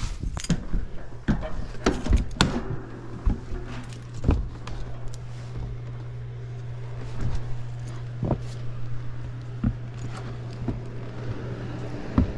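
Scattered knocks, clicks and footfalls of someone moving and handling things, over a steady low hum that starts about a second in and stops just before the end.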